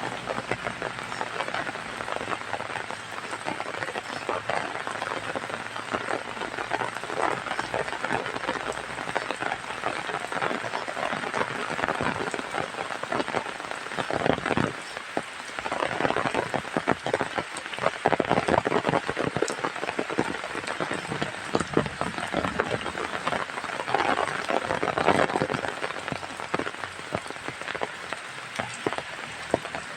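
Heavy rain falling steadily, a dense patter of drops splashing on surfaces, easing briefly about halfway through.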